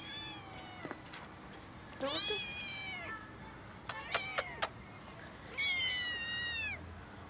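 Kittens meowing: a run of thin, high-pitched meows, each falling in pitch at its end, with a loud one about two seconds in, a few short quick calls around four seconds, and a long loud meow near six seconds.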